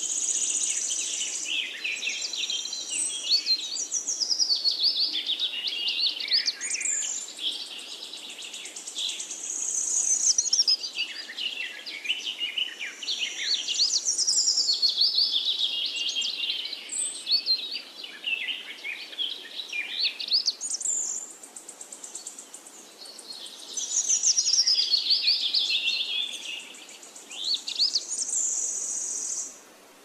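Songbirds singing: rapid, varied high-pitched songs in phrases several seconds long, with brief gaps between them.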